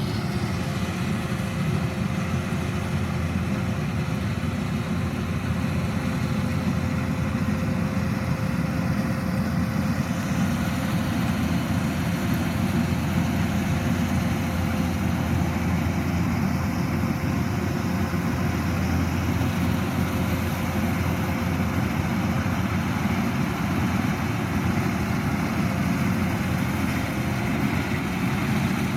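Kubota DC-105X rice combine harvester's diesel engine running steadily.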